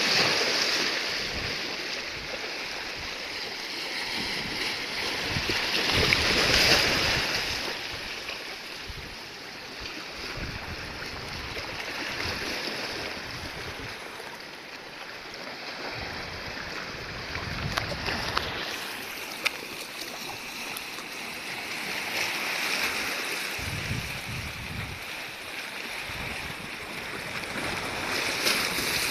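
Sea waves washing in, the surf swelling and easing every several seconds, loudest about six seconds in, with gusts of wind rumbling on the microphone.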